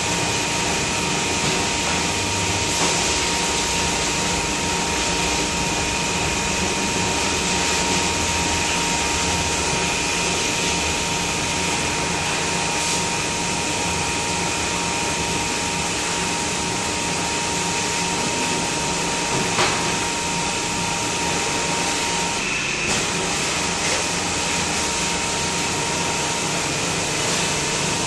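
A steady machine drone with a constant high whine, the even running noise of a fan or blower type of motor, with a faint click or two.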